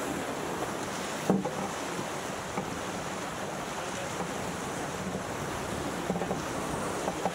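Water rushing along the hull of a fast-sailing racing sailboat as its bow wave breaks alongside, mixed with wind buffeting the microphone. A single sharp knock comes about a second in.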